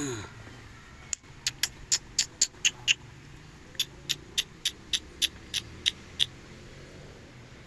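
Quick squeaky kissing sounds made with the lips to call a dog: two runs of about nine sharp smacks each, roughly four a second, with a pause of about a second between them.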